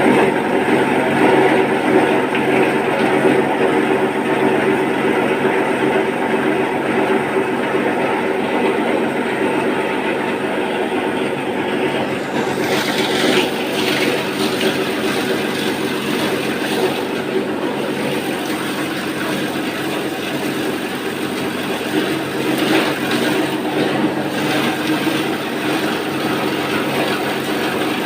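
12-inch plastic scrap grinder running steadily with a loud, even machine noise and several steady hum tones. From about twelve seconds in, a harsher, higher-pitched rattle joins in.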